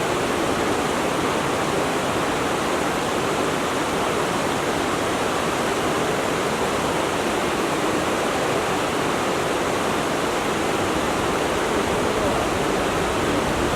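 A stream of water flowing, a steady, even rushing.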